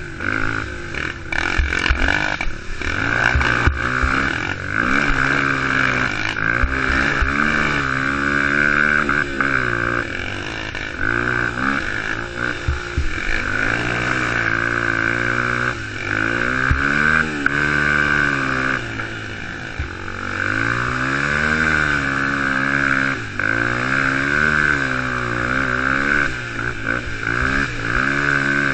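Youth quad (ATV) engine revving up and down as it is ridden hard over a rough dirt trail, its pitch rising and falling again and again with throttle and gear changes. Knocks from the bumpy track come through in the first few seconds.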